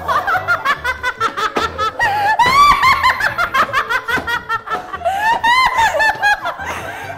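Women laughing hard in high-pitched fits, over background music with a steady beat.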